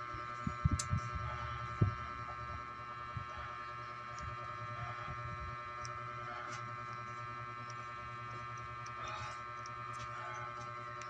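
Steady hum with a few dull low thumps in the first two seconds.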